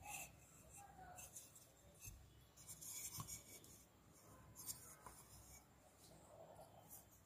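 Faint handling of terracotta clay pots: a few short scrapes and light clinks as the pots are picked up, turned and set down against one another.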